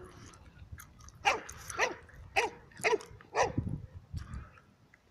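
A dog barking at sheep, five sharp barks in quick succession, about two a second.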